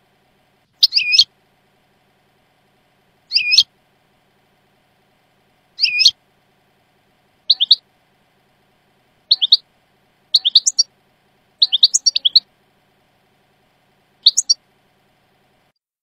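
European goldfinch singing short, separate high chirping phrases every couple of seconds. The first few are single quick sweeping notes, and the later ones come as rapid clusters of two to four notes. This is a goldfinch song tutoring recording in the Jordanian style.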